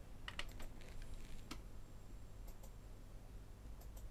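Pioneer CT-P720WR cassette deck's transport buttons and tape mechanism giving a few faint, scattered clicks as playback engages on its newly replaced drive belts.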